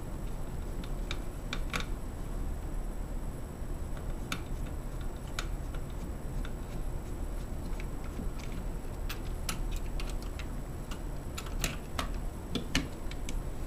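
Scattered light clicks and taps of a screwdriver and small metal parts as the back of an electronic deadbolt is screwed to its backing plate with short set bolts, over a low steady hum.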